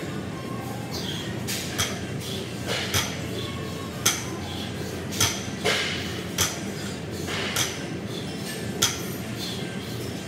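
A barbell loaded to about 280 lb with bumper plates touching down on the gym floor between deadlift reps: sharp clanks with a metallic clink of the plates, about once a second, over a steady background noise.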